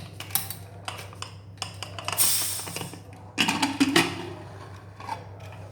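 Pressure cooker being opened: metal clicks and clatter of the lid and pot, with two longer noisy spells about two and three and a half seconds in, over a steady low hum.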